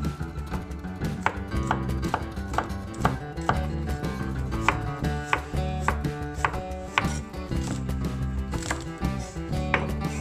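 Cleaver blade chopping garlic, ginger and green onion on a wooden cutting board: a series of sharp knocks, about two a second with a short pause partway through, over soft background guitar music.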